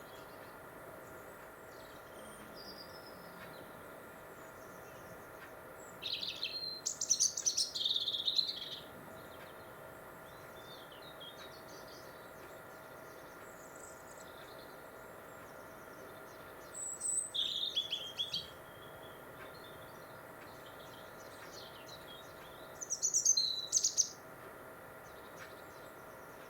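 European robin singing its winter song: three high, warbling phrases of a second or two each, separated by long pauses, with fainter chirps in between.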